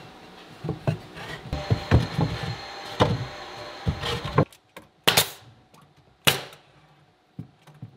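Light wooden knocks and thumps from hands handling a painted wooden nightstand cabinet while its door is being fitted, then two sharp clicks about five and six seconds in.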